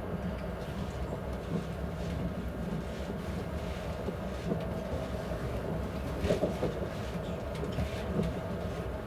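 Running noise of an ES1P Lastochka passenger train at speed, hauled by a diesel locomotive: a steady rumble of wheels on the rails with a few brief knocks, the strongest about six seconds in.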